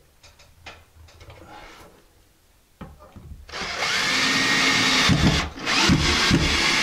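Cordless drill driving a screw up through a drywall strip into the ceiling. After a few seconds of faint handling clicks the motor starts about halfway through and runs loudly as the screw grinds in, stuttering briefly near the end.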